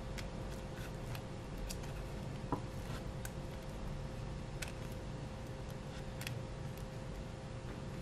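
Faint small clicks and ticks of jewelry pliers and a metal earring hook being worked by hand as the hook's ring is put in and closed, with one sharper click about two and a half seconds in. A faint steady hum lies underneath.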